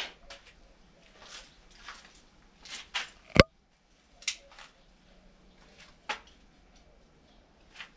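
Workshop handling noises as tools and welding cables are gathered up: scattered short scrapes and clicks, with one sharp knock about three and a half seconds in.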